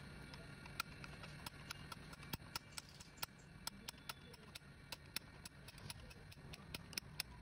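Light metallic clicks, about three a second and unevenly spaced, as a spanner works a bolt loose on a motorcycle handlebar, over a faint steady low hum.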